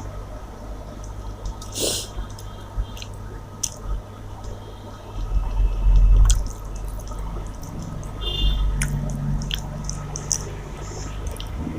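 A person eating: wet, squishy chewing and mouth sounds with scattered short clicks over a steady low hum.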